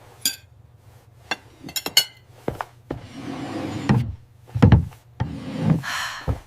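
A run of sharp taps and knocks, some in quick clusters, with two swells of scraping or rubbing noise and a heavy low thud a little past the middle.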